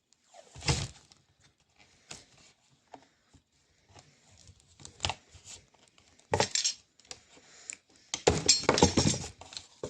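Irregular clicks, knocks and clinks of small hard parts being handled and set down on a table, with a longer clattering stretch near the end.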